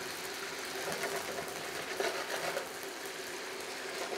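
Pigeon breasts sizzling in a frying pan as the Calvados flambé burns off, over the portable hob's steady hum. There is a light clink about two seconds in.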